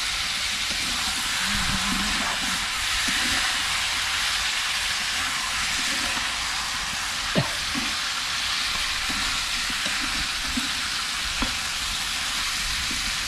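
Chicken frying in masala in an iron kadai: a steady sizzle, with a single sharp knock about seven seconds in and a few faint ticks.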